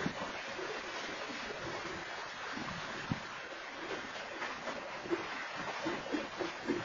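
Freight train of tank cars and boxcars rolling past: steady rushing noise of steel wheels on the rails, with scattered knocks from the wheels and couplers, one about three seconds in and several close together near the end. Heard through a security camera's microphone.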